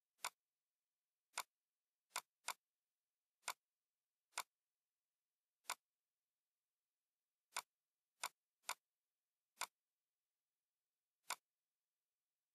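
Computer mouse clicking: twelve short, sharp clicks at uneven intervals, a couple of them in quick pairs, with near silence between.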